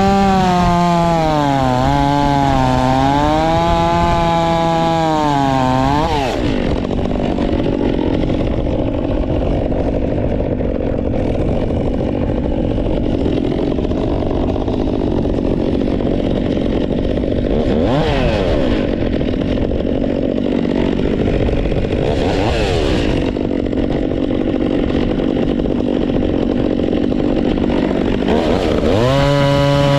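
Stihl 362 two-stroke chainsaw with an Egan Straight Shot performance muffler, revving at high throttle with a wavering pitch, then dropping into a cut through wood for most of the time. It briefly rises in pitch twice mid-cut and revs freely again near the end.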